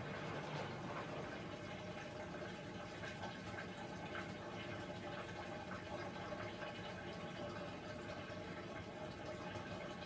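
Hoover Dynamic front-loading washing machine near the end of its cycle: the drum slows and comes to rest, and water trickles and drips inside it over a steady low hum.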